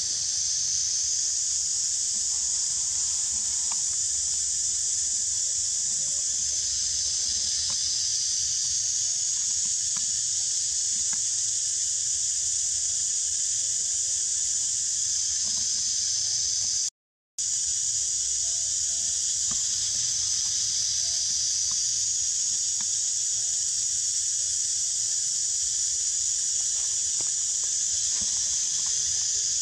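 Steady high-pitched drone of an insect chorus, swelling gently every so often, with a brief drop-out a little past halfway.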